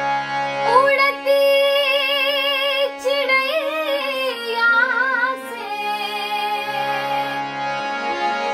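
A woman singing a Purvi folk song in long, wavering, ornamented held notes over a steady harmonium drone. The voice comes in about a second in and drops out a little past the middle, leaving the harmonium holding its chord alone.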